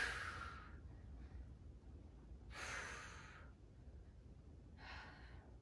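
A woman breathing hard from exertion: three breaths out, each under a second, about two and a half seconds apart, the first the loudest.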